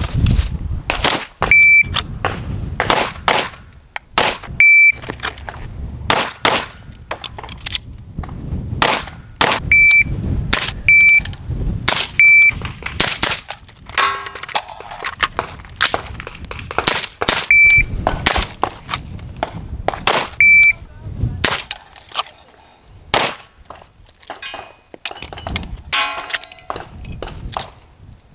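Gunfire at a shooting range: dozens of sharp shots at irregular spacing, some in quick strings, with a short high ding at one fixed pitch recurring about eight times between them.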